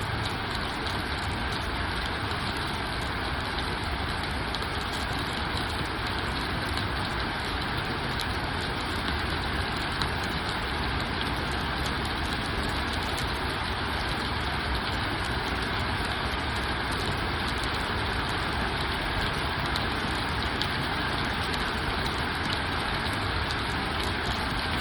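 Steady rain falling: an even, unchanging hiss with a low rumble underneath.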